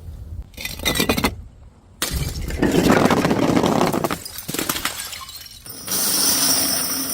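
Glass shattering and shards clinking, in several separate bursts: one about half a second in, a longer one from two seconds in, and another near six seconds that rings on.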